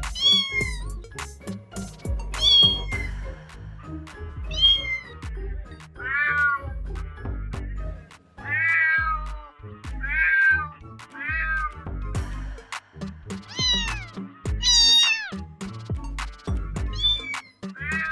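Kitten meowing again and again, about ten separate meows, several of them high and sliding down in pitch, over background music with a steady beat.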